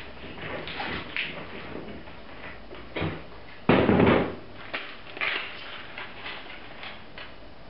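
Clear tape being pulled from its roll and pressed onto the corners of a wooden screen-printing frame: light taps and rustles, with one loud noise lasting about half a second a little over halfway through.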